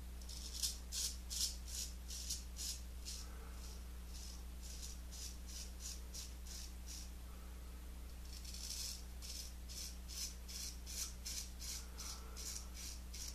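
Gold Monkey 777 straight razor scraping through lathered stubble on the cheek in short, quick strokes, about two or three a second, in three runs with brief pauses between them.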